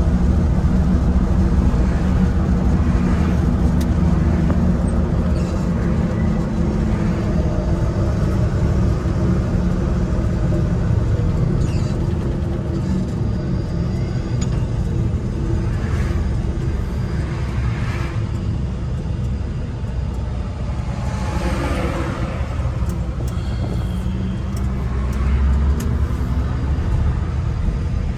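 Inside the cab of a 1979 Chevrolet C10 pickup under way: its original 250 cubic-inch inline-six engine running steadily, with road and tyre noise. The engine note climbs again about three-quarters of the way through.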